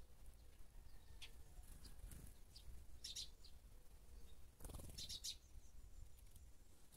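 Small wild birds chirping faintly: short high chirps in scattered clusters, the densest around three and five seconds in. A brief soft rustle comes with the last cluster.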